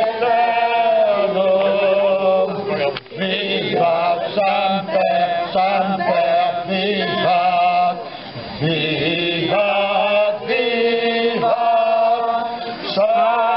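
A mixed group of voices singing a slow, chant-like song with long held notes.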